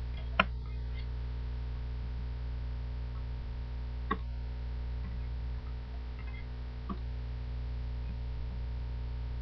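Steady low mains hum on the recording, with three sharp single computer-mouse clicks: one about half a second in, one near the middle and a fainter one about two-thirds through.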